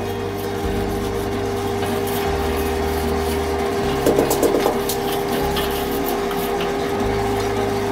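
A wooden straightedge scraping and rubbing across a damp sand-cement mortar bed as it is levelled, a gritty scratching over a steady low hum.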